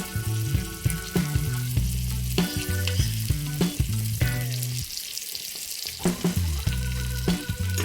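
Food sizzling in hot oil in a miniature pan, with small clicks and scrapes of stirring, over background music that drops out for about a second in the middle.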